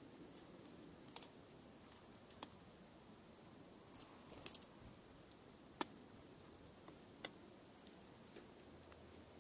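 Dark-eyed junco feeding in a metal seed tray: scattered light clicks and taps of its bill picking at seed. About four seconds in comes one sharp, high chip note, then a quick run of high twittering notes.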